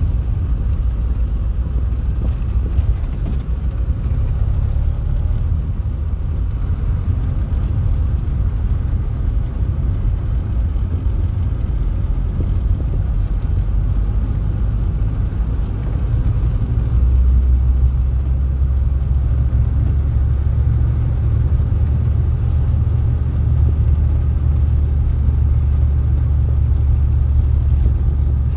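Car driving along a street: a steady low rumble of engine and tyres, growing louder about two-thirds of the way through.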